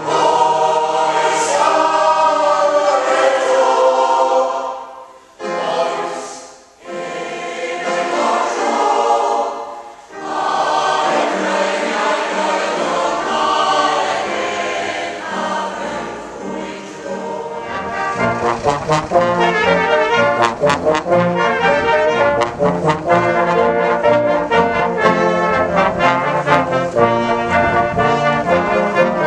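Mixed choir of women's and men's voices singing, with short breaks between phrases. About eighteen seconds in it gives way to a brass band playing.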